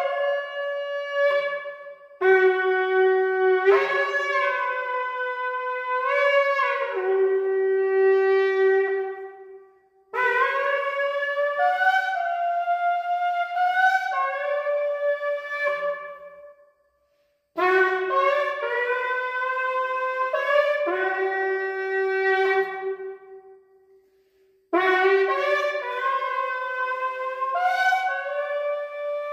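A 36-inch shofar blown in long sustained blasts, the notes stepping up and down between a few pitches. The playing comes in phrases broken by short pauses about 10, 17 and 24 seconds in.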